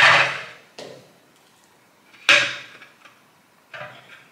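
Plastic parts of a Salter 3-tier food steamer being stacked: clear plastic steamer tiers and a mounting ring set down onto one another. Two sharp plastic knocks that fade quickly, the second about two seconds after the first, with a lighter click after the first and a couple of light clicks near the end.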